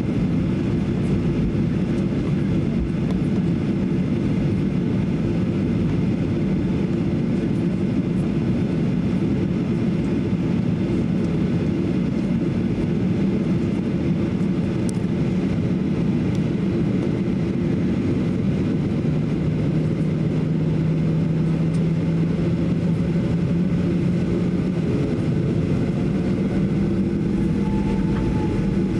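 Steady drone of the CFM56 jet engines at low thrust, heard inside the cabin of a Boeing 737-800 taxiing toward the runway. Near the end a faint whine comes in, rising in pitch.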